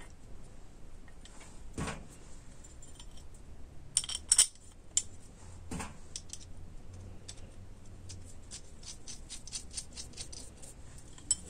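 Small metal parts clinking and knocking as they are handled. There are a few louder knocks about four seconds in and a run of quick light clicks in the second half.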